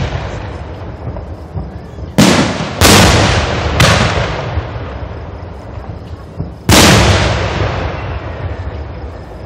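Aerial firework shells bursting close overhead: two loud booms about half a second apart a couple of seconds in, a smaller one about a second later, and another big boom near the middle, each trailing off in a long rolling echo.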